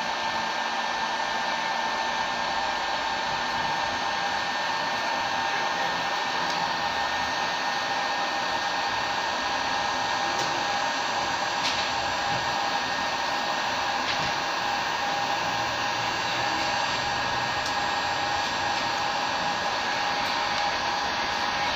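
Dnipro-M FP-203 heat gun running steadily, its blower giving a constant rushing noise with a steady whine.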